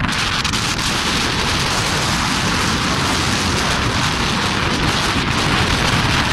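Wind buffeting the microphone: a loud, steady rushing with a heavy, unsteady low rumble.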